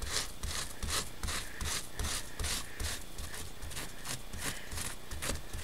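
Wet wipe rubbed back and forth over a textured craft plate in quick scrubbing strokes, about four a second, wiping off wet paint paste.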